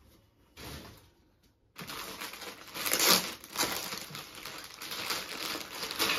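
Clear plastic packaging around a folded suit crinkling as it is handled and opened. There is a short rustle about half a second in, then steady crinkling from about two seconds in, loudest around the three-second mark.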